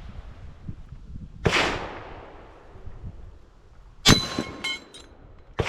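Three gunshots at a range, spaced about a second and a half to two and a half seconds apart, each with a short echoing tail. The second, about four seconds in, is the loudest and is followed by a brief metallic ring.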